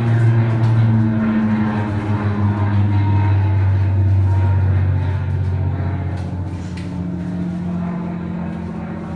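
Piston aircraft engine droning, played as a sound effect for the arriving PT-19 trainer planes. Its pitch drops slightly about a second in, and it slowly fades over the last few seconds.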